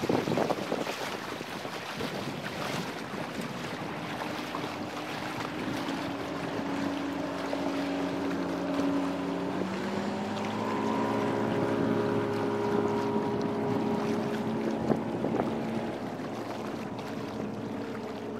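Water rushing along the hull of a Lancer 25 sailboat under sail, with wind buffeting the microphone. From about four seconds in, a steady motor hum joins, steps up in pitch about ten seconds in, and fades a few seconds before the end.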